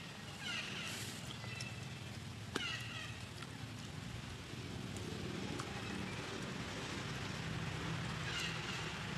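Infant long-tailed macaque giving a few short, high, falling squeals, about half a second in, about two and a half seconds in and near the end, over a steady low hum, with one sharp click about two and a half seconds in.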